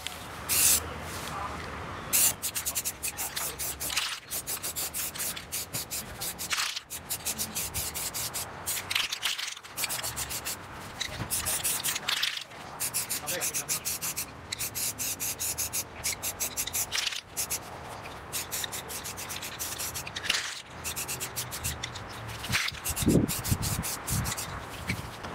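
Aerosol spray paint can hissing in repeated short bursts as a coat of paint is sprayed on.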